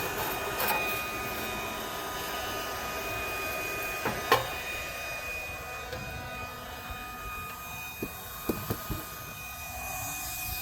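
Handheld induction heater running with a steady fan hiss and a thin high whine, heating a seized oxygen-sensor nut. A few short sharp knocks cut through it, the loudest about four seconds in and three more between eight and nine seconds.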